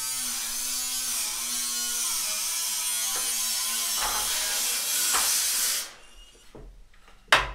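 Small handheld electric tool running with a steady buzzing whine, its pitch wavering slightly as it works, then cutting off suddenly about six seconds in. A single loud, sharp knock follows near the end.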